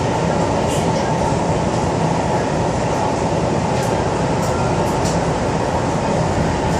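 MTR South Island Line S-Train running at speed through a tunnel, heard from inside the car: a steady rumble and rush of wheels and motors. A few faint, brief high-pitched sounds come and go.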